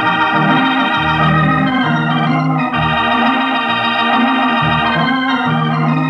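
Organ music from an old radio show: loud held chords over a bass line that moves note by note, shifting to a new chord partway through.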